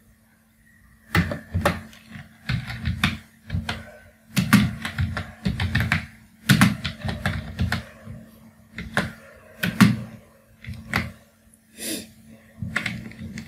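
Typing on a computer keyboard: irregular clusters of keystrokes, starting about a second in, over a faint steady hum.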